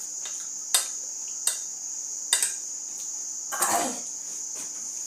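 A metal spoon clicking against a ceramic dinner plate, three sharp clinks in the first two and a half seconds and a short scrape near the end, over a steady high chirring of crickets.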